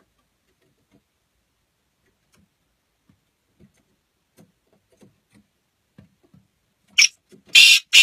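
Male black francolin calling near the end: one short harsh note, then a longer harsh note, after several seconds of near quiet broken only by faint soft taps.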